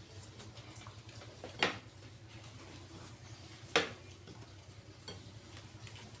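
Quiet eating sounds of a person eating rice by hand from a plate, with two sharp clicks, about a second and a half and nearly four seconds in, over a low steady hum.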